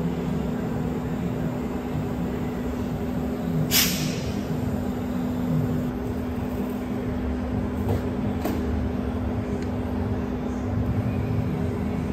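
Steady machine hum with one low, even tone, and a single sharp clack about four seconds in.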